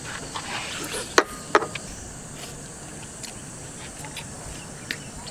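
Eating sounds: chewing and sucking on braised spicy chicken feet, with a few sharp clicks, two of them close together about a second and a half in.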